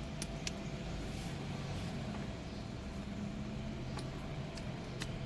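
Steady low hum of the parked car running, with a few faint clicks as plastic parts of the USB adapter are pushed into the dashboard panel.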